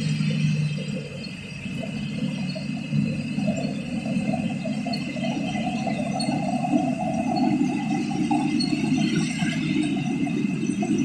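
Combine harvester running: steady mechanical noise with rattling from the machinery.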